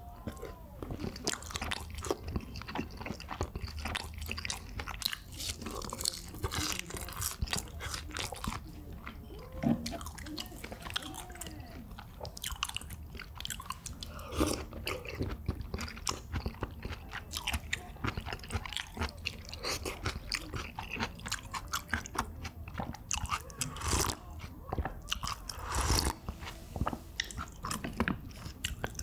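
Close-miked eating: chewing and biting of jajangmyeon and Korean-Chinese side dishes, a steady run of small wet clicks, with a few short slurps as noodles and food are sucked in, near the start and again about ten seconds in.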